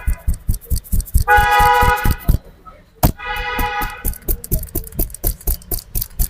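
Hands slapping and chopping rhythmically on a person's head and shoulders in a percussive massage, about five quick slaps a second. Twice, a vehicle horn honks for about a second; the first honk is the loudest sound.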